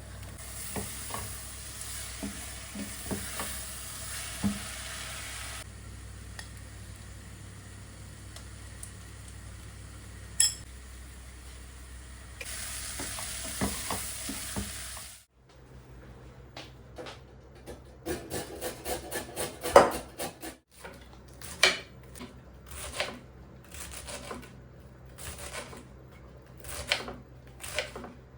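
Food sizzling in a frying pan while it is stirred, with utensils knocking against the pan. About halfway through the sizzle stops and a run of sharp, irregular clicks and knocks of kitchen utensils follows.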